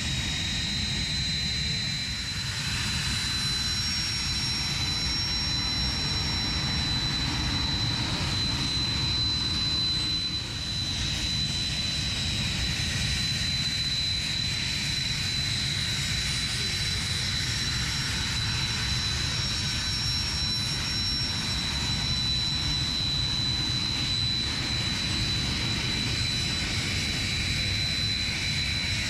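Jet trainer's turbofan engines running steadily: a high whine held at one pitch over a low, even rumble.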